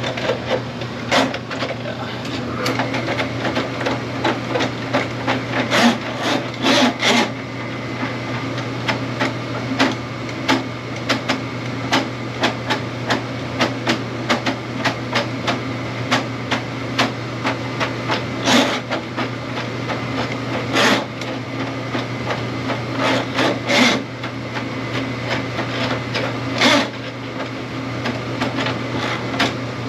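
Electric drain-cleaning machine running with a steady low hum while its spinning cable knocks and clatters irregularly in the drain line, with several louder knocks scattered through.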